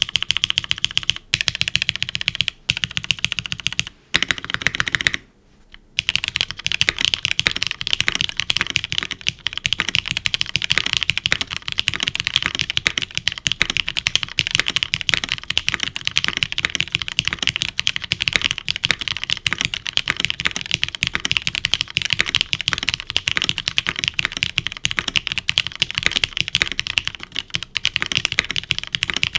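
Typing on a Neo75 CU mechanical keyboard fitted with scratchy Cherry MX Black switches, GMK keycaps and an aluminium plate with no foam: a fast, continuous clatter of keystrokes. There are a few brief pauses in the first six seconds.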